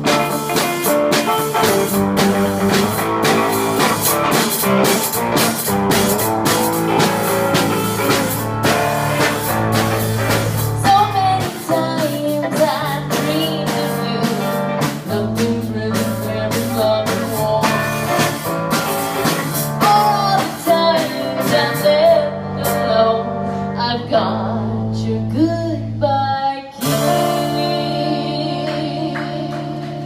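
Live band playing: electric guitar over a drum kit. The drums play busily for most of it and drop away about three-quarters through, leaving the guitar, which breaks off for a moment and comes back with ringing held chords.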